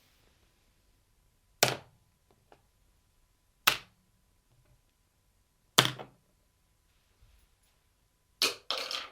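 Small objects dropped one at a time onto a hard surface: four sharp impacts about two seconds apart, each dying away quickly, with a couple of faint bounce ticks after the first and a short clatter near the end.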